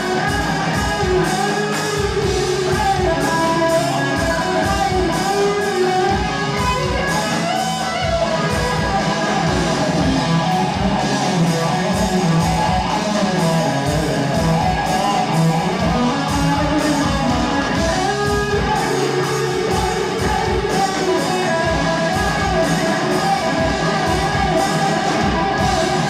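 Live heavy metal band playing loud: distorted electric guitar, bass guitar and a drum kit keeping a steady beat.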